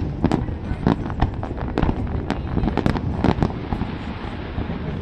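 Aerial fireworks display: an irregular, rapid run of shell bursts, several a second, over a continuous low rumble from the barrage.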